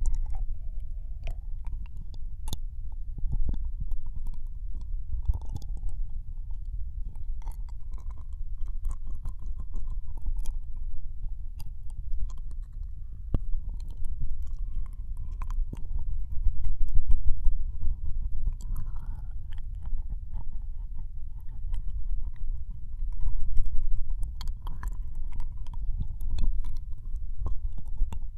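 Wet ear-licking mouth sounds on a binaural dummy-head microphone's ear: many small wet clicks and smacks over a constant deep rumble from contact with the mic, swelling twice in the second half.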